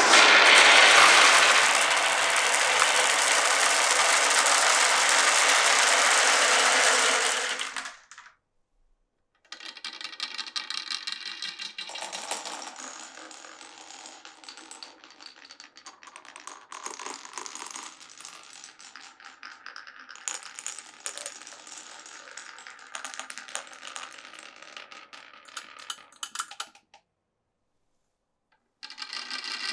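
Marbles rolling and clattering through a marble run's tracks and pipes: a loud, dense rattle for about eight seconds, then, after a brief silence, a long stretch of lighter clicking and rolling with some ringing. The rattling breaks off again near the end and starts up just before the close.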